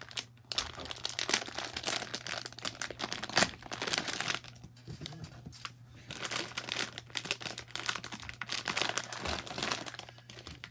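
Plastic candy packaging crinkling and rustling as it is handled, in dense irregular crackles with a quieter lull about four to six seconds in.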